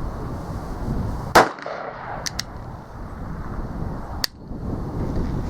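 Uberti 1875 Schofield revolver firing .45 Long Colt: two sharp shots about three seconds apart, the first about a second and a half in and the louder of the two.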